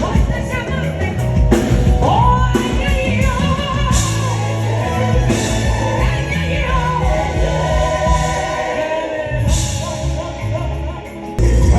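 Live band with bass guitar and drums playing while a singer sings a melody through the PA during a sound check. Near the end the music drops briefly, then the full band comes back in loudly.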